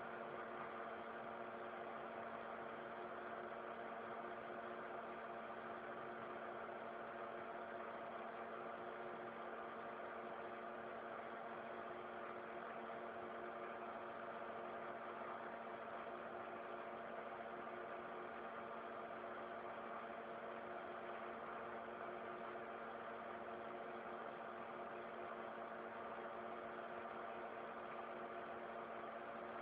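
Industrial three-axis CNC milling machine running with a steady, unchanging hum and whir made of several held tones.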